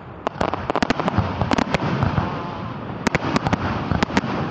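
Aerial firework shells bursting: a rapid series of sharp bangs and pops, bunched most thickly about a second in and again around three seconds in.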